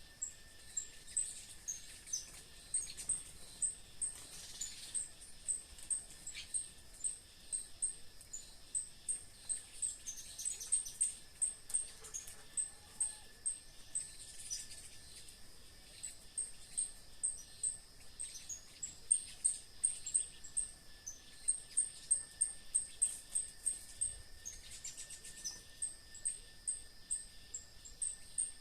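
Rural dusk chorus of insects and birds: a very high chirp repeats about two to three times a second over a steady high insect drone and a thin steady tone, with short falling bird calls now and then.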